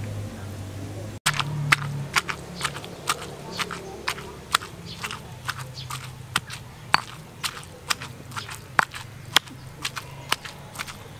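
Stone pestle pounding cooked fish in a stone mortar: sharp, regular knocks about two a second, starting about a second in.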